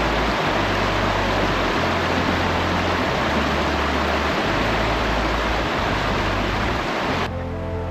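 Loud, steady rush of falling water, with low background music notes underneath; near the end the water sound cuts off abruptly and only the music remains.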